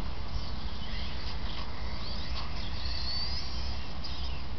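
RC model cars running around the deck, heard as thin high-pitched motor whines, with a rising whine about three seconds in as one accelerates. A steady low rumble lies underneath.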